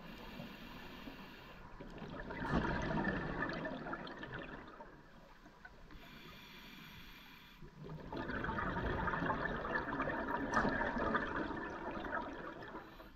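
Scuba diver breathing on a regulator underwater: twice, a short thin hiss on the inhale, then a long rush of exhaled bubbles bubbling up past the microphone.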